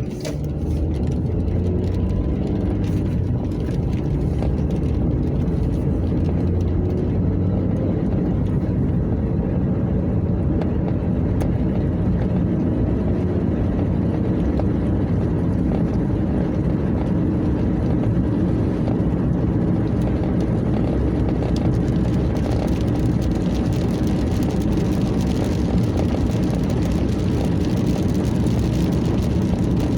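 Car driving along, a steady low rumble of engine and road noise heard from inside the cabin.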